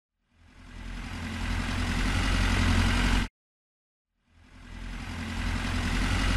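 An engine sound effect played twice: each time a motor's running hum builds up over about a second, holds steady, then cuts off abruptly after about three seconds, with a second of silence between the two.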